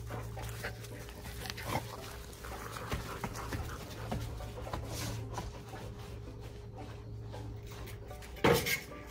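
Dogs playing with rope and tug toys on artificial turf: panting, scuffling paws and small knocks of the toys, with one sudden louder sound near the end.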